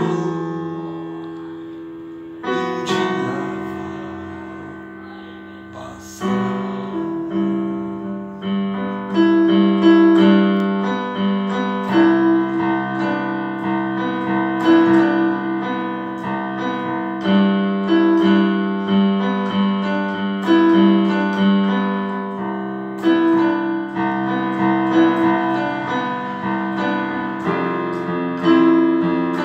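Piano being played: two chords held and left to ring out, then from about six seconds in a steady, even pattern of chords under a melody.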